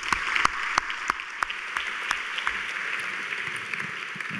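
An audience applauding, with a few loud single claps standing out, the applause fading away near the end.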